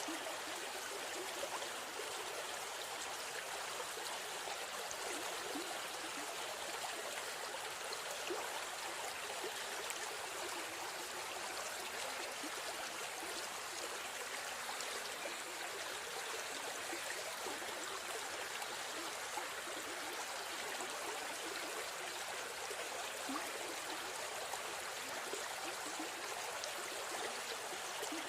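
River stream flowing, a steady rushing and trickling of water.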